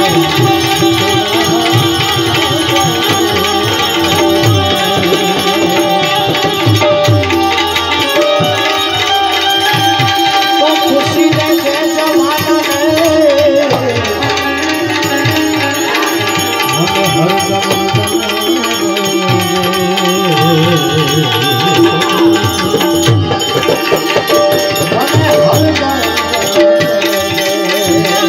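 Indian instrumental music: tablas playing a steady rhythm under a benjo (Indian banjo) melody with wavering, sliding notes, and manjira hand cymbals.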